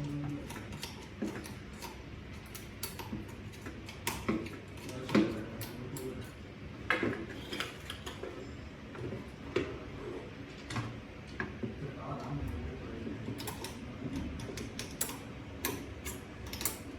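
Irregular clicks and light knocks of small hard objects being handled, a few every second, over a low background murmur.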